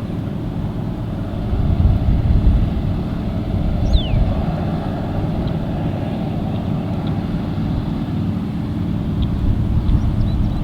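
AGCO Gleaner R62 combine running while harvesting wheat: its air-cooled V8 engine and threshing machinery make a steady, low rumble, a little louder about two seconds in. A brief falling chirp comes about four seconds in.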